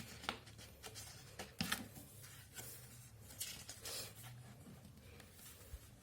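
Faint rustling, with scattered soft clicks and swishes, of album photobook pages being handled and turned.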